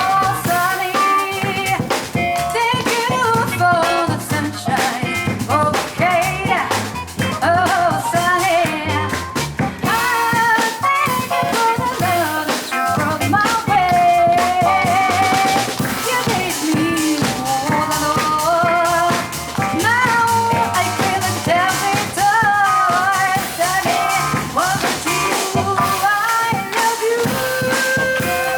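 Live jazz band playing: drum kit with rimshots, double bass and piano, with a melody line over them that bends in pitch.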